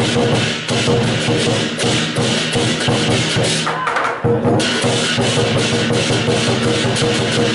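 Lion dance percussion: a large Chinese lion drum beaten in a fast, driving rhythm with hand cymbals crashing along. The cymbals drop out briefly about four seconds in.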